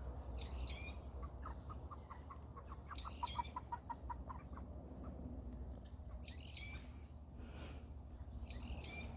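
A bird calling: short high calls every two to three seconds, with a run of quick, evenly spaced short notes between about one and four seconds in.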